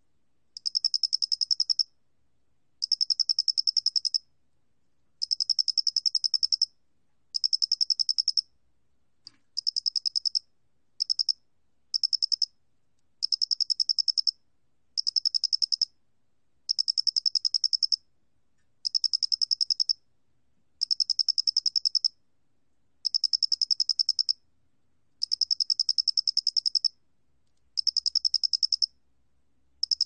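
Male Loxoblemmus doenitzi (모대가리귀뚜라미) cricket calling, recorded at 29 °C: high, rapid pulsed chirp trains about a second long, repeated with short pauses, a few shorter trains near the middle.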